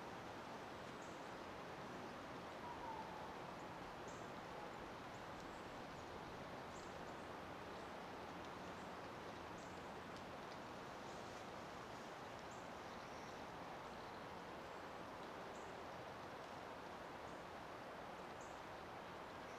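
Faint, steady outdoor ambience of even background hiss, with faint short high-pitched chips or ticks every second or two.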